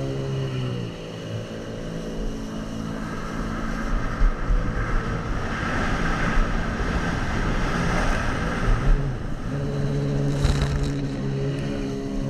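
Sea-Doo Spark jet ski running on the water through power spins: a steady engine tone at first, giving way in the middle to a rougher rushing sound of engine and churned water, then the steady engine tone returns about nine seconds in. A brief sharp burst, like a slap of spray or hull on water, comes about ten seconds in.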